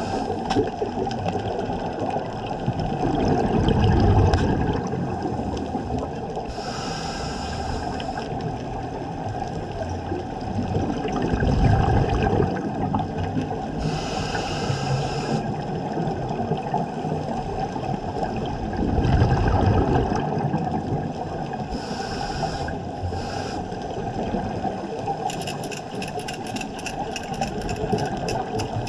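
Scuba breathing through a regulator, heard underwater: a hissing draw of air through the regulator alternates with a low bubbling rush of exhaled bubbles, three breaths in all, every seven or eight seconds. Near the end comes a quick run of sharp clicks.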